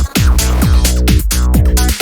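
Electronic techno music: a drum-machine beat under a steady deep bass, with repeated downward-sweeping synth tones.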